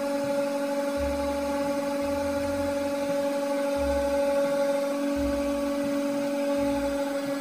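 Hydraulic press pump motor running with a steady hum while the ram holds a steel jack stand under more than five tonnes of load. Irregular low rumbling comes and goes beneath the hum, with no cracks or bangs.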